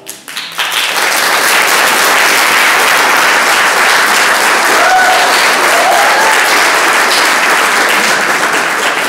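Audience applauding: clapping breaks out as the piano stops and swells within about a second to loud, steady applause.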